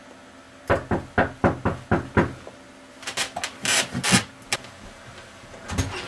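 Quick knocking on a door, about seven knocks at roughly four a second, followed by rustling and scraping sounds and a thump near the end.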